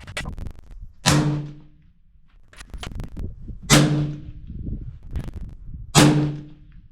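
Three shots from a suppressed 6.5 Creedmoor rifle, about two and a half seconds apart, each a sharp report with a brief low ring after it. Faint clicks come between the shots.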